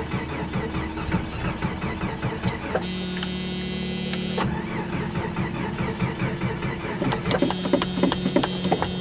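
Old van's engine being cranked over by its starter on a weak battery in the cold: it turns over unevenly and too slowly, without settling into a run. Twice the cranking gives way, for a second or two, to a steadier, hissing whir.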